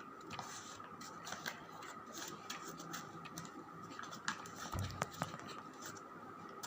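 Faint scratching and scraping of hands working at packaging, with scattered small clicks and a dull thump about five seconds in.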